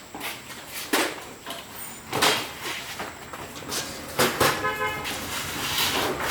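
Honda Win 100 motorcycle being readied for a test ride: scattered clicks and knocks, a short horn beep about three-quarters of the way through, and engine noise building near the end.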